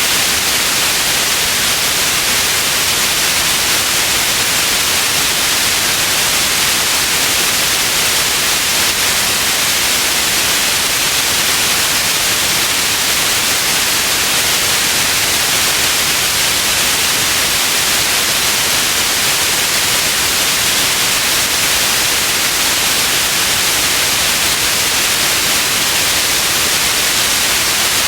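Steady white noise: an even, unchanging hiss, strongest in the upper range.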